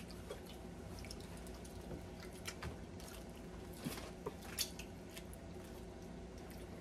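People eating seafood with their hands: faint chewing and wet squishing, with scattered small clicks of shells and fingers, several between about two and five seconds in. A faint low hum runs underneath.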